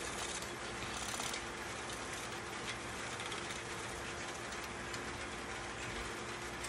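Wooden spring pole lathe spinning a workpiece back and forth on its rope drive while a 120-grit random orbital sander disc is held by hand against the wood: a steady mechanical scraping and rubbing noise, with a faint steady hum underneath.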